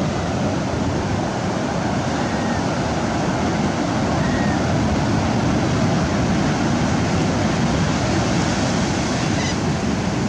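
Ocean surf breaking and washing up a flat sandy beach: a steady, loud wash of waves, with wind on the microphone.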